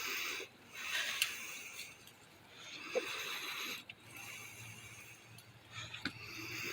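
Chickens pecking and eating cantaloupe: bouts of scratchy, wet pecking with small clicks, each lasting about a second.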